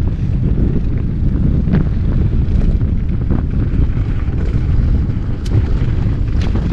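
Wind buffeting the mountain biker's action-camera microphone at speed, a loud rumble mixed with the tyres running over the dirt and gravel trail. Several sharp clicks from stones or the bike rattling stand out along the way.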